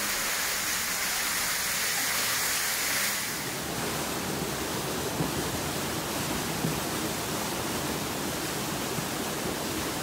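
Floodwater rushing and splashing, a steady hissing rush. About three seconds in it gives way to a heavier, deeper rush of water surging down a passage.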